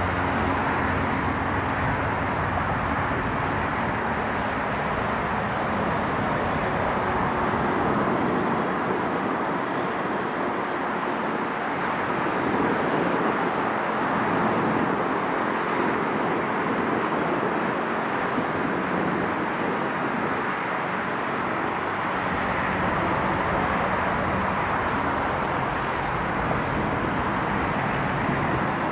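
MLW diesel-electric locomotive approaching slowly at the head of a freight train, its engine a faint low drone under a steady rush of road traffic noise.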